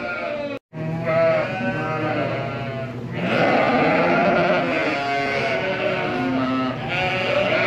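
Many sheep, ewes and lambs, bleating at once: a dense chorus of overlapping calls at different pitches.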